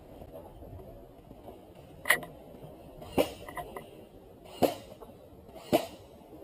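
Airsoft gun firing four single shots, roughly a second or so apart, each a sharp crack.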